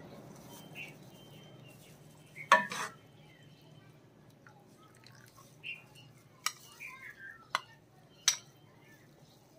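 Metal ladle clinking and scraping against a metal cooking pot and a glass bowl while noodles are served out, with a few sharp clinks, the loudest about two and a half seconds in.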